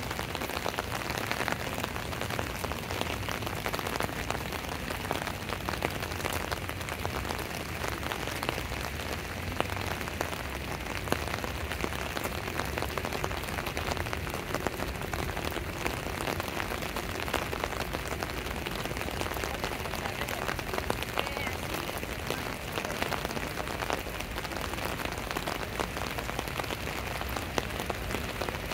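Steady rain with a dense patter of individual drops hitting close by, over a steady low rumble.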